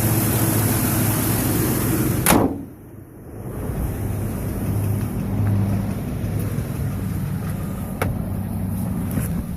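Chevrolet Vortec 5.3 L V8 in a 2011 Silverado idling steadily. About two seconds in there is a single sharp knock, after which the engine sounds quieter and muffled.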